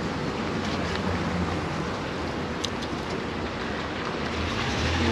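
Steady rushing outdoor background noise: distant city traffic with a low hum underneath, and a light click about halfway through.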